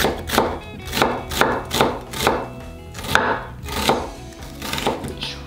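Chef's knife slicing a new onion thinly on a wooden cutting board: crisp cuts ending in a knock on the board, about two a second, coming more slowly in the second half.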